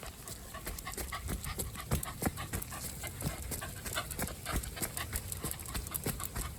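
Shiba Inu panting, rapid and rhythmic at about three breaths a second.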